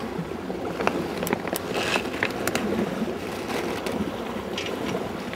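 A sailboat running downwind under spinnaker: a steady rush of wind on the microphone and water along the hull, broken by scattered sharp clicks and knocks.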